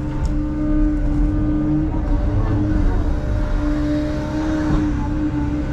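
Bobcat E165 excavator's diesel engine and hydraulics running under load, heard from inside the cab as a steady, loud hum while the bucket dumps dirt and the boom swings.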